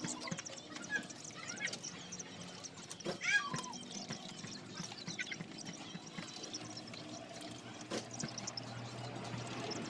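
Chicks peeping over and over in short high notes, with one louder call about three seconds in that slides down in pitch.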